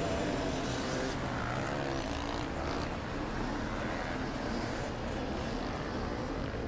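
Motorcycle engines running in a steady drone whose pitch wavers up and down.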